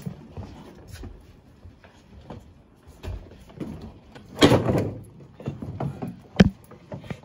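Knocks and scrapes of a wooden cabinet being carried out through a front door and storm door. There is a longer clatter about four and a half seconds in and a sharp knock near the end.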